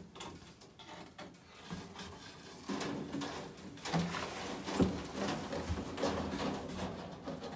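A sheet of plastic mesh being slid and fitted onto a brooder shelf: irregular scraping and rustling with light knocks, the sharpest about five seconds in.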